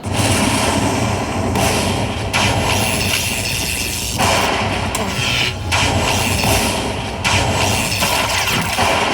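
Heart Throb Lightning Link slot machine's loud electronic win sound effects as the finished bonus is tallied. A dense crashing, jangling series shifts abruptly about every second.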